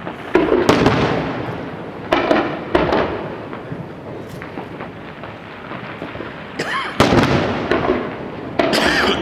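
Aerial fireworks bursting in a string of sharp bangs, each followed by a rolling echo: a pair of bangs near the start, two more around two to three seconds in, then another cluster near the end.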